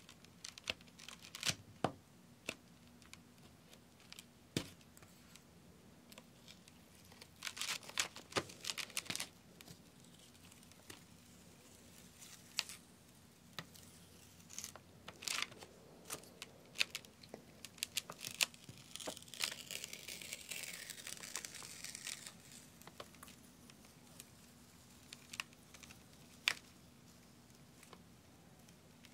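Sticky protective film being peeled off a sand-art board's adhesive surface, with crackling and scattered sharp ticks. A soft rustling hiss runs for a few seconds past the middle.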